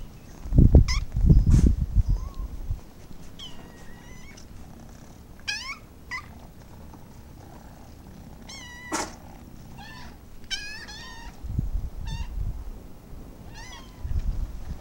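Kittens meowing: a series of thin, high-pitched mews, some bending up and down in pitch, scattered through, with several in quick succession around the middle. Low rumbling noise near the start and again near the end.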